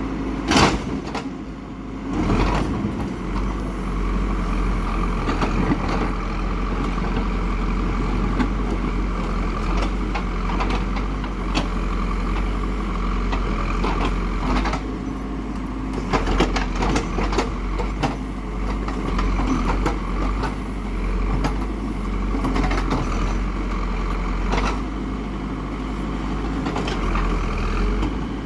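Diesel engine of a heavy construction machine running steadily, with a sharp knock about half a second in and scattered clanks throughout.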